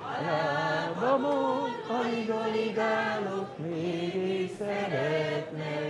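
A choir singing a Hungarian drinking song about wine in unison, with long held notes.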